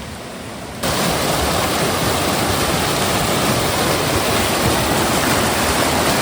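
Loud, steady rush of flowing river water, cutting in abruptly about a second in.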